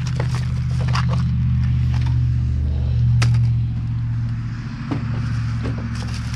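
Steady low hum of an idling engine, swelling briefly about halfway through, with a few sharp clicks and rustles of food packages being handled.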